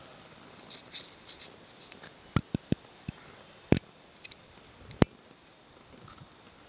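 Quiet strokes of a paintbrush applying paint to an inflatable boat's tube, with several sharp clicks and knocks around the middle.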